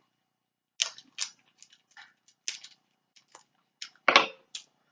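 Snow crab leg shells cracking and snapping as they are broken open to get at the meat: a string of short, sharp cracks and clicks, the loudest about four seconds in.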